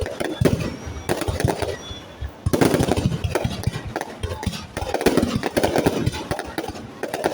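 Fireworks going off in a dense, irregular barrage of bangs and crackles, easing briefly about two seconds in, then coming back loud and sudden.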